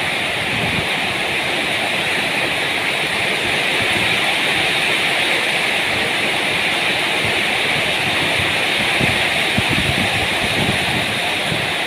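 Heavy storm rain falling in a steady downpour, driven by strong wind.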